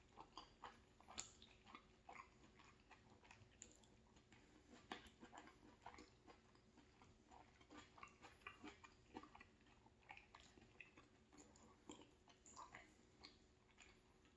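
Faint, irregular chewing and wet mouth clicks from a person eating soft pasta with sausage and vegetables in tomato sauce.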